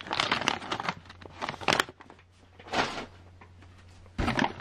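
Clear plastic parts bags crinkling and rustling as they are handled, in irregular bursts, with a quieter stretch in the middle.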